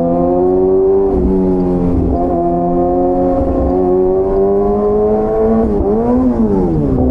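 Superbike engine and exhaust under way, pitch climbing slowly with a few brief dips like quick gear changes. Near the end the revs fall and rise again twice as the throttle is closed and reopened.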